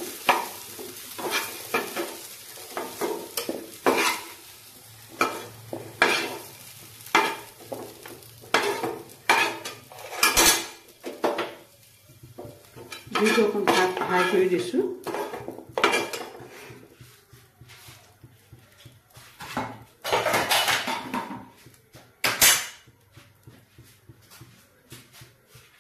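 A metal spatula scrapes and clinks against a frying pan and a steel plate as fried potato pieces are lifted out of hot oil, with some sizzling. The clatter thins out in the last few seconds.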